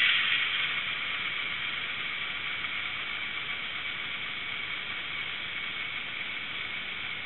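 Steady hiss from the sound-decoder speaker of a Hornby Class 42 Warship model locomotive after its diesel engine sound has been shut down. It eases down about half a second in, then holds steady.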